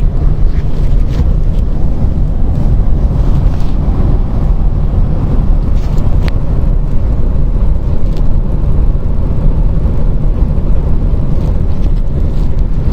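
Steady rush of 130 km/h wind-tunnel airflow over a 2017 Ford F-150, heard from inside the cab, heaviest in the low end, with a few faint ticks. Part of it is an abnormal wind noise from air coming in at the top corner of the front door.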